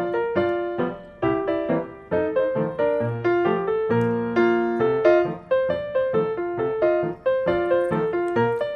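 Background solo piano music: a steady run of single struck notes, each fading before the next.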